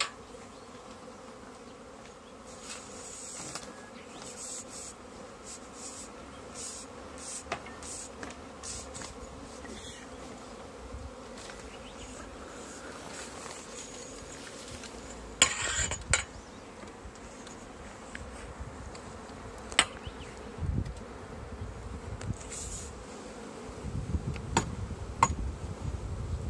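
A swarm of honeybees buzzing steadily, with scattered clicks and knocks of handling and a short loud rustle about halfway through. Low rumbling handling noise grows louder near the end.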